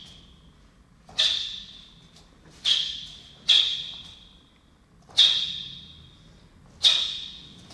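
Sharp snaps of a taekwon-do uniform (dobok) cracking at the end of each kick and strike in a pattern, five in all, each ringing briefly in the hall.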